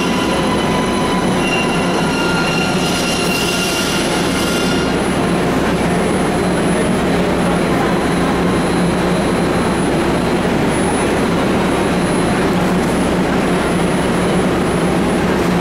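MARTA rapid-transit train at an underground platform, its steady loud running noise filling the station. A few high whining tones over it stop about five seconds in, leaving a steady hum.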